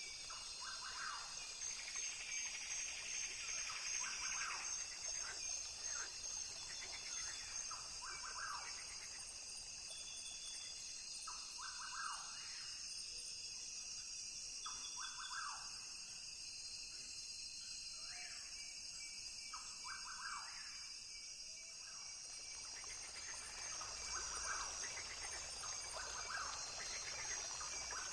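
Rainforest ambience: a steady, high-pitched insect drone, with short animal calls repeating every couple of seconds.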